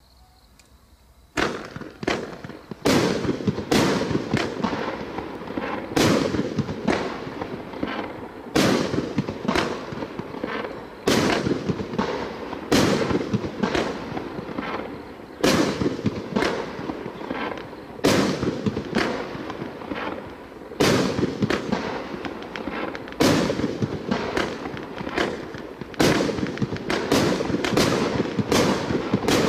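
A 1.2-inch 25-shot fireworks cake firing, starting about a second and a half in: sharp bangs every one to three seconds, with rapid crackling filling the gaps between them.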